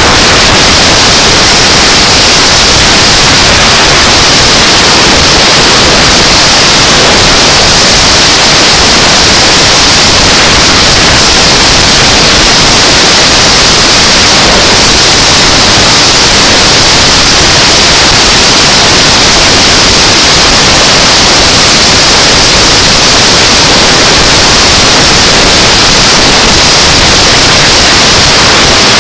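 Loud, steady hiss of wind rushing over the camera microphone on a motorcycle at highway speed, with no engine note standing out.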